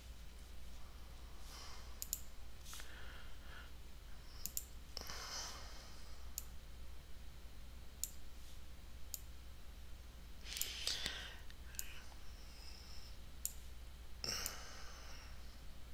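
Computer mouse clicking, single sharp clicks scattered every second or two as on-screen sliders are adjusted, with a few soft breaths into the microphone over a low steady hum.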